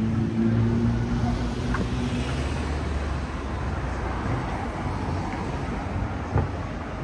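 Street traffic: a motor vehicle's engine hums close by for the first two seconds or so, over a steady wash of road noise, with a short knock about six seconds in.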